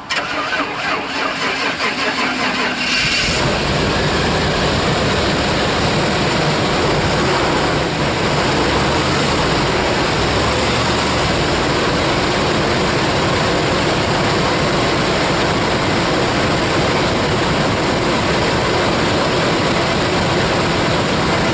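1995 GMC Suburban engine cranking on the starter for about three seconds, then catching and settling into a steady idle.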